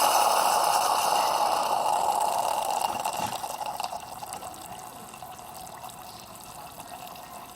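Saeco Incanto espresso machine's hot-water wand hissing with steam while the pump is primed before hot water comes through. The hiss is loud for about three seconds, then drops to a quieter steady flow.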